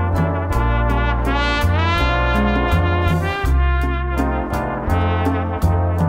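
Big-band Latin dance music: trumpets and trombones playing over a bass line that moves from note to note, with steady percussion ticks about four a second. The brass sweeps upward about a second and a half in.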